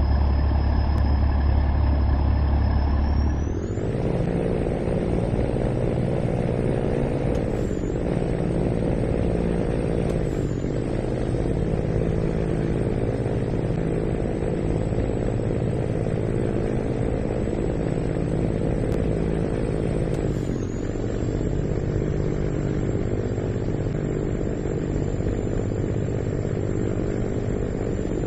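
Diesel engine of an Irizar PB 6x2 coach running steadily, with a high whine over it. About three and a half seconds in the sound changes and the whine rises in pitch, and later the engine sound dips briefly three times.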